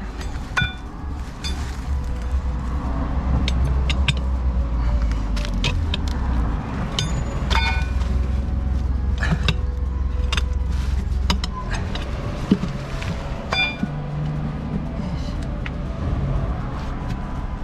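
Sharp metal clinks and knocks, some ringing briefly, from tools working a scooter tyre off its wheel rim, scattered irregularly over a steady low rumble.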